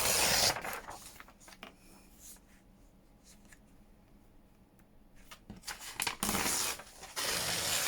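Blank paper being torn by hand to size: a short tear at the start, then after a quiet pause two more tearing strokes near the end.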